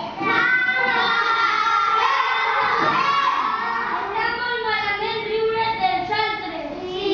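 A group of young children singing together, starting about a quarter of a second in.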